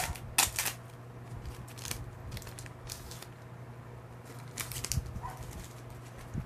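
Trading cards being handled, with short scraping and rustling sounds as the cards slide against each other, over a low steady hum.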